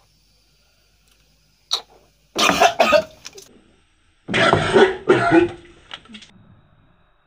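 A person coughing hard after gulping down a glass of turmeric juice. There is a short bout of coughs about two seconds in and a second, harsher bout of two coughs about four seconds in.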